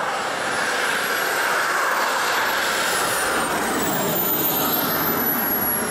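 1/5-scale F-16 model jet's engine running as the model taxis: a steady rushing jet noise with a thin high whine that rises over the first two seconds and then falls away.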